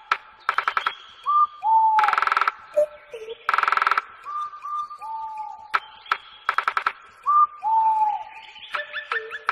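A songbird singing: clear whistled notes, several sliding down in pitch, alternating with fast trills, the loudest trills about two and three and a half seconds in.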